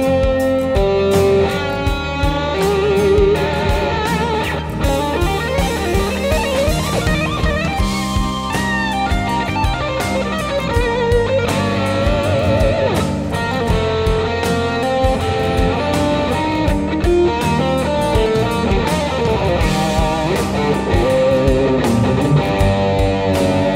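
Les Paul-style electric guitar playing a lead solo, fast runs mixed with held notes shaken by wide vibrato, over a rock backing track with drums and bass.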